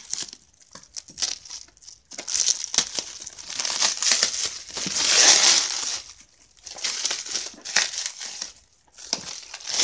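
Plastic parcel wrapping and tape being torn and crumpled by hand as layers are pulled off. It comes as uneven bursts of crinkling and crackling, loudest in the middle.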